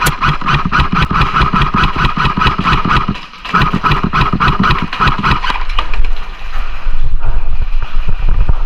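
Airsoft electric gun firing on full auto: a rapid, even clatter with a buzzing gearbox tone, in two long bursts split by a short pause about three seconds in. After that come louder, scattered knocks and clicks.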